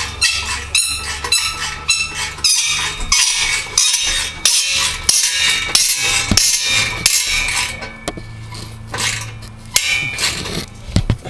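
Metal exhaust pipe being worked into place: a quick, irregular run of metallic clinks, knocks and scrapes as the pipe sections are fitted together.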